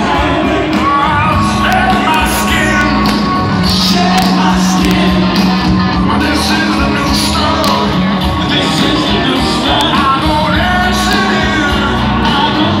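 Live rock band playing with singing and shouted vocals, heard from the crowd in a large arena.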